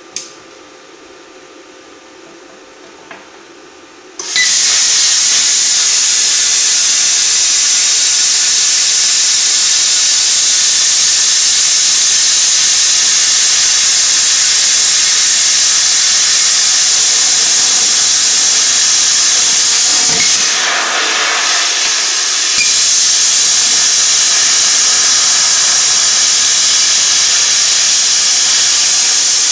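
A sharp click near the start, then about four seconds in a hand-held plasma cutter fires up: a loud, steady hiss of air and arc as it cuts through metal. The hiss dips and changes briefly about twenty seconds in, then carries on.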